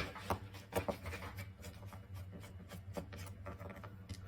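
Pry tools scraping and clicking against the seam of a car alarm remote's plastic case as it is worked open: light scratching and many small irregular clicks over a steady low hum.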